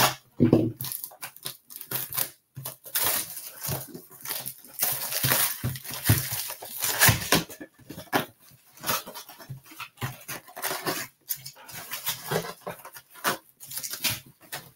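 Plastic shrink-wrap crinkling and tearing as it is pulled off a cardboard hobby box of trading cards, in irregular rustles and crackles. Near the end, the cardboard box top is handled as it is opened.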